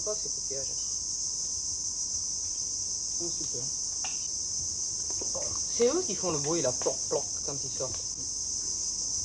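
Steady high-pitched chorus of jungle insects. About halfway through comes a brief wavering call, louder than the insects.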